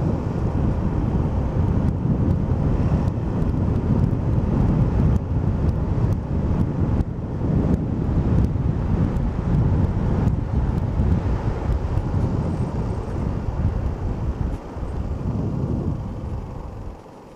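Steady rush of wind and road noise on a helmet camera's microphone while riding a motor scooter at speed. It eases off and then drops away near the end as the scooter slows.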